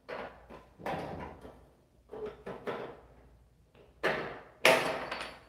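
Steel door frame clanking and rattling as a hand tool works its tabs off: a series of irregular metal knocks and scrapes, the loudest about four and a half seconds in, with a brief ring.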